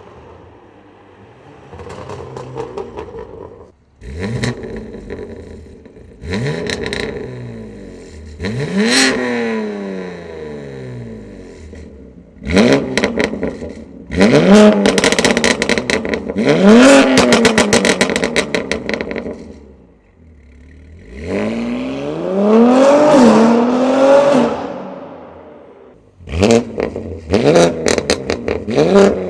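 BMW G80 M3's S58 twin-turbo inline-six through a titanium equal-length X-pipe catback and catless downpipes, revving hard several times. The pitch climbs with each pull and falls away between them, and there is rapid crackling near the end.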